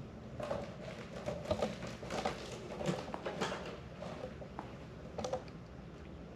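A cat's claws scratching and catching on a cat tree's sisal-rope post and plush fabric, a quick irregular series of light clicks and scratchy taps, thinning out about halfway through with a few more a little later.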